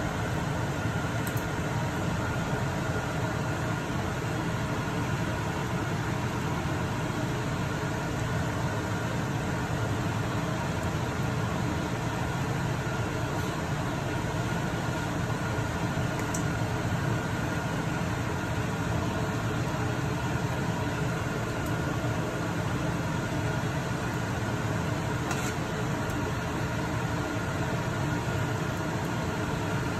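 Steady machine hum like a kitchen fan, with a few faint clicks of a serving spoon against the pot and the foil tray as chicken curry is ladled.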